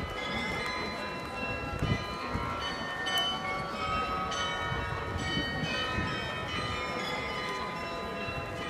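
The tuned bells of the Munich Rathaus-Glockenspiel playing a melody, many overlapping ringing notes sounding one after another, over a steady murmur of street noise.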